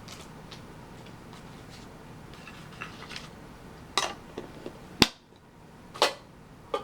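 Scattered clicks and taps of hands handling a small metal Pokémon mini tin and its packaging, with one sharp, loud click about five seconds in.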